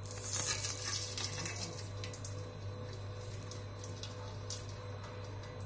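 Sesame oil poured from a bottle into a hot stainless steel pan: a splashing, hissing stream for about two seconds, then a few faint ticks as the oil spreads over the heated pan.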